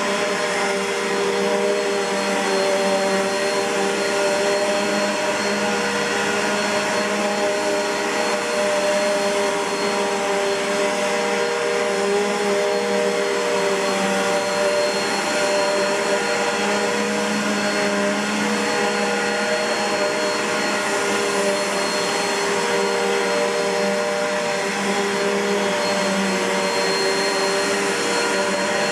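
Bissell PowerForce (71Y7) bagged upright vacuum cleaner with its Midea-built motor running steadily: a constant motor hum and whine that does not change.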